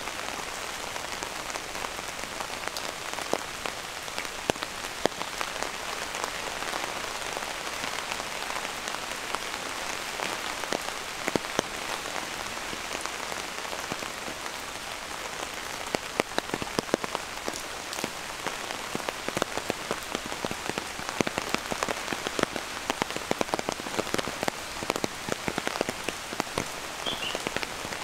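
Steady rain falling, with many sharp drops striking close by. The drop hits grow denser in the second half.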